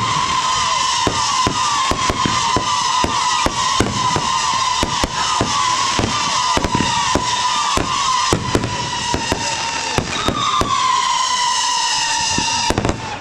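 Firework whistling continuously on one high pitch that slowly sinks and wavers, with rapid sharp crackling pops throughout; the whistle cuts off abruptly near the end.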